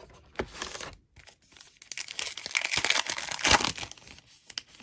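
Foil trading-card pack wrapper crinkling and being torn open. A short rustle about half a second in, then a louder, denser run of crinkling and tearing from about two seconds in.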